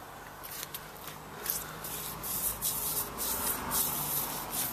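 Irregular rubbing and scraping handling noises: a gloved hand working over the opened cylinders and pistons of a Copeland refrigeration compressor, over a faint steady low hum.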